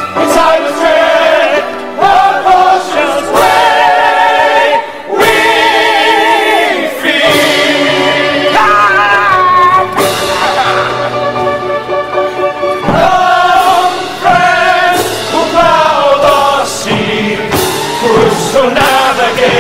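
Operetta chorus of men singing together with accompaniment, the voices held with strong vibrato and phrases breaking every second or two.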